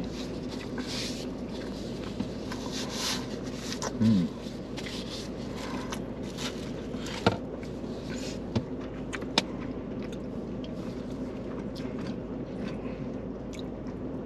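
Steady hum inside a car, with a few light clicks and scrapes of forks in takeout containers during a meal.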